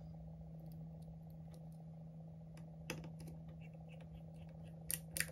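Light clicks of a precision screwdriver and small metal parts as a tiny logic-board screw is driven into an iPhone 11, with a sharper click about three seconds in and a quick run of clicks near the end, over a faint steady hum.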